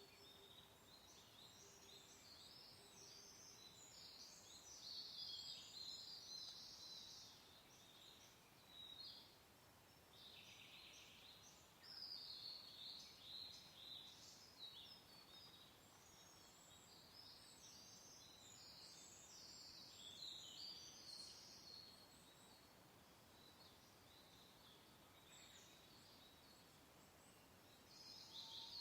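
Faint birdsong: small birds singing and chirping in several bursts with pauses between, over a soft, steady hiss of wind.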